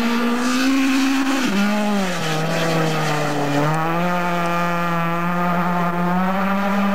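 Rally car engine running hard at high revs. The pitch climbs, then drops sharply about a second and a half in and sinks lower. It picks up again a little before halfway and then holds steady.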